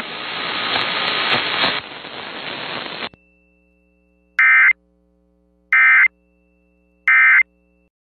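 AM radio static hiss that fades and cuts off suddenly about three seconds in. Then three short, identical warbling data-tone bursts, each about a third of a second and spaced about 1.3 s apart: the Emergency Alert System End of Message signal closing the alert.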